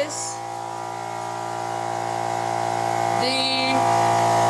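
Air compressor's electric motor running, a steady hum that grows gradually louder.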